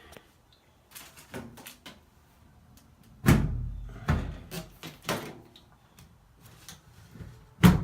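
Samsung washing machine's top panel being slid off and handled: a series of knocks and clunks, with a heavy thud about three seconds in and a sharp bang near the end.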